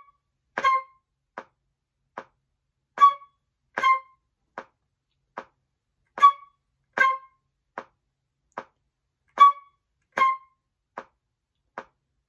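Metronome ticking slowly, about 75 beats a minute, with a flute playing short staccato notes, C-sharp then C, on two beats in every bar of four, four times over.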